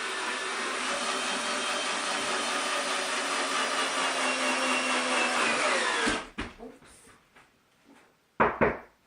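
Battery-powered cordless drill running steadily for about six seconds, then winding down as it stops, while holes are drilled along a strip for the greenhouse. A short loud burst follows near the end.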